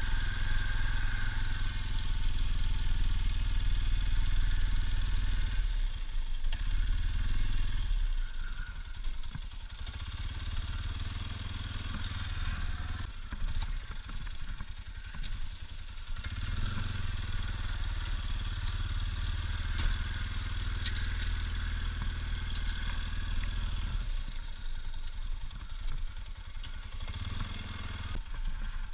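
ATV engine running under a plow, its hum dropping away and picking up again several times as the machine works.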